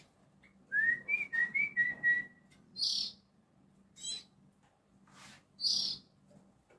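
Oriental magpie-robin (kacer) singing: a quick run of short clear whistled notes about a second in, followed by several short harsh, scratchy notes spaced a second or so apart.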